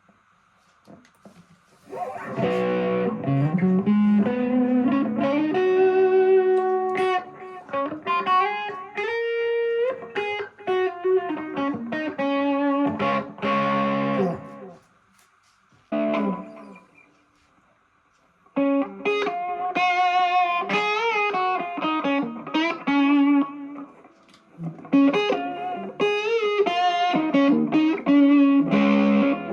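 Electric guitar played through a Vox MV50 AC amp into a 10-inch speaker cabinet: a melodic line of single notes and chords that starts about two seconds in, stops for a few seconds around the middle, then starts again. There is a faint steady amp hum before the first notes.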